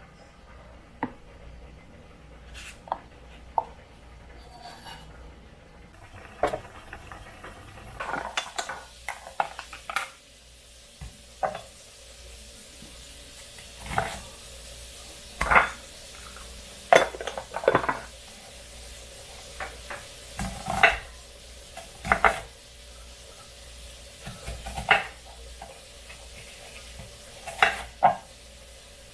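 Kitchen utensils and dishware being handled: irregular sharp clinks and knocks against dishes and pans, sparse at first and more frequent after about six seconds.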